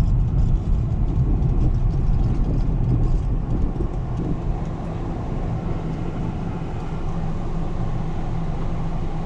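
Steady road and engine rumble inside a moving car's cabin, driving on a snowy, icy road. It eases a little about halfway through.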